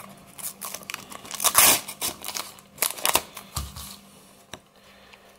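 A World Cup sticker packet's wrapper is crinkled and torn open by hand in a few sharp rustling bursts, the loudest about a second and a half in. Quieter handling of the stickers follows near the end.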